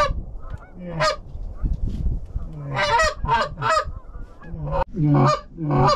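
Canada goose honks: about nine loud, cracking honks, with a quick run of four around three seconds in and three more close together near the end.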